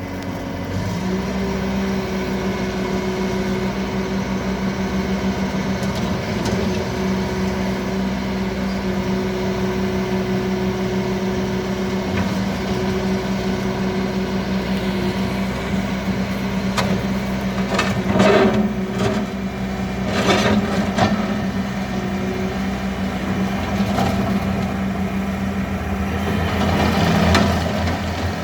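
Diesel engine of a Bobcat T590 compact track loader running steadily, with a few sharp metallic clanks about two-thirds of the way through. The engine turns louder and rougher near the end.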